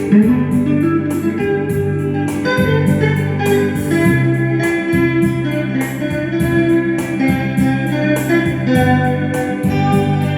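Instrumental romantic music: a guitar plays the melody over a sustained organ-like keyboard backing with a steady held bass.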